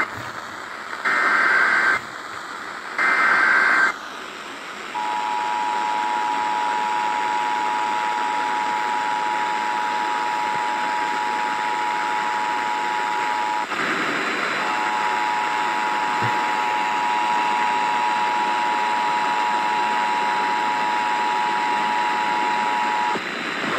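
Emergency Alert System test signal received over the radio. Two bursts of warbling SAME header data tones, each about a second long, are followed by the EAS attention signal: the steady 853 and 960 Hz two-tone. It runs about eight seconds, stops briefly, then sounds again for about eight seconds more, over a background of radio hiss.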